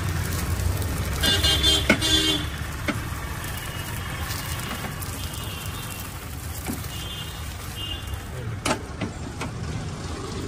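Street traffic rumble with a vehicle horn tooting for about a second near the start and fainter toots later, plus a few sharp knocks or clicks, the loudest near the end.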